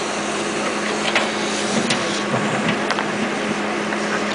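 New Holland backhoe loader's diesel engine running steadily as it moves dirt, with a few light knocks over the top.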